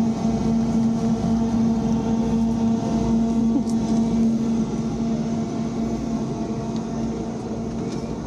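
Steady hum of a refrigerated display case's fans and compressor, holding one constant low tone. It stops near the end.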